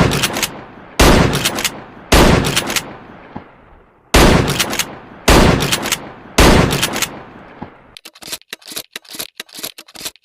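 Remington 870 pump-action shotgun firing: loud single shots about a second apart, with a longer pause after the third, each blast ringing off slowly. Near the end comes a quick run of lighter mechanical clicks.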